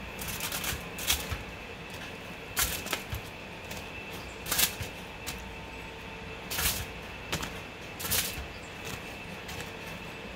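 Crisp baked rolled tortillas being lifted off a foil-lined baking tray onto a paper plate: aluminum foil crackling and the rolls clacking together in about six short bursts.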